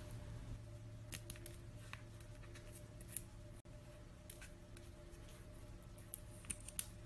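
Faint, scattered clicks and scratches of fingers picking and peeling at the edge of a thick toenail, a few sharper clicks near the end, over a low steady hum.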